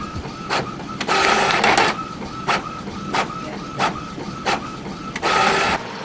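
Desktop printer printing a page: the print-head carriage runs in short passes about every two-thirds of a second, with two longer passes, about a second in and near the end.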